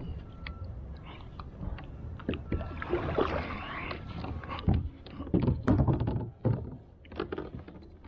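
Knocks, clicks and rattles of a spinning rod and gear being handled in a plastic kayak, over a steady low rumble, with a cluster of louder thumps past the middle.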